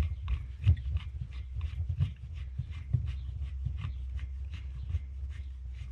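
Quick, even clicking, about four clicks a second, as a threaded knob is turned by hand to tighten the bolt on a rod-rack mounting bracket. A steady low rumble runs underneath.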